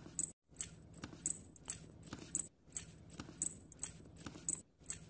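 Walking plush pony toy running, its motor humming under a regular clicking of about two to three clicks a second.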